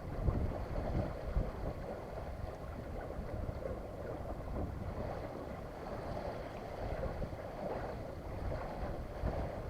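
Wind buffeting the microphone in uneven gusts over a steady wash of water, aboard a small sailboat under sail in light wind.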